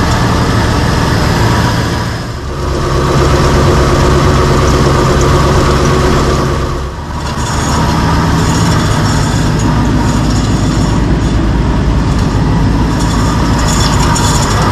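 The 350 small-block V8 of a 1976 Chevrolet K20 running steadily, its sound dipping briefly twice, about two and seven seconds in.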